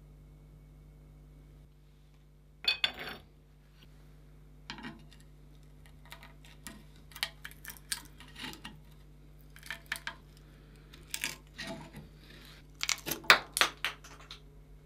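A steel flat-blade screwdriver prying and scraping the rotten, broken wooden handle off the tang of a rusty 1930s Adriance adjustable wrench: irregular clinks of steel on steel mixed with scraping and splintering wood. The sound comes in short clusters from about three seconds in and is loudest near the end.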